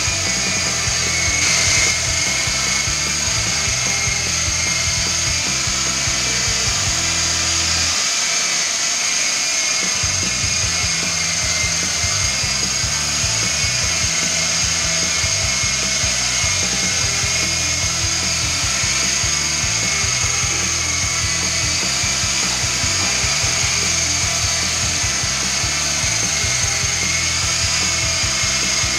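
Art-Tech MD500 coaxial RC helicopter in hover and flight: its small electric motors and two counter-rotating rotors give a steady high whine, with background music underneath.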